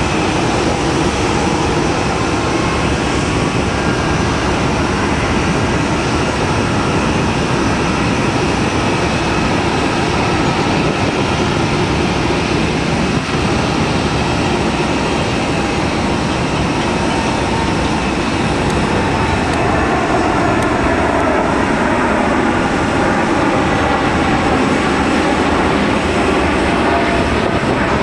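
Boeing 747-8 freighter's four GEnx jet engines at takeoff thrust, making steady, loud noise through the takeoff roll, liftoff and climb-out.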